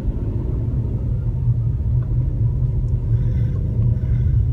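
Steady low rumble of a car driving along a city street, heard from inside the car: engine and road noise.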